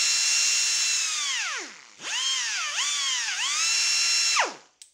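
Husky H4220 pneumatic die grinder spinning free with a high whine and air hiss. It winds down after about a second and a half, then runs again with its pitch dipping twice as its speed changes, and winds down just before the end, while its RPM adjustment screw is being set with a screwdriver.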